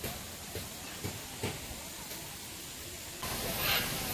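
Steady rush of a waterfall, with a few short knocks in the first second and a half; about three seconds in the rushing suddenly becomes louder and fuller.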